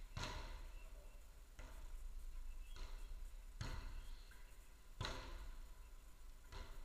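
Footvolley ball being kicked back and forth in a rally: about five dull thuds a second or so apart, each echoing in a large hall.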